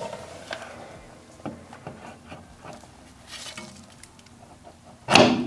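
Hands handling a freshly greased wheel bearing and hub parts: scattered small clicks and rubbing, then a sudden loud knock or clatter near the end.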